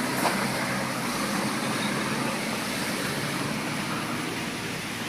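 Tour bus engine running steadily as it climbs a steep road, with tyre and road noise.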